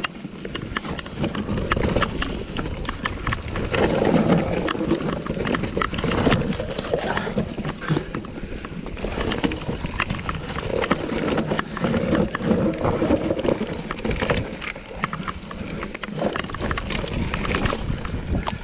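Enduro mountain bike riding down a dirt forest trail: tyres rolling over dirt and leaves while the bike rattles and clatters over bumps in a dense run of clicks and knocks, over a low rumble.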